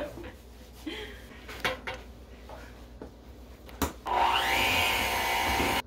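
Electric hand mixer switching on about four seconds in with a rising whine, then running steadily as it beats flour into cookie dough, and cutting off suddenly near the end. A few light knocks and a sharp click come before it starts.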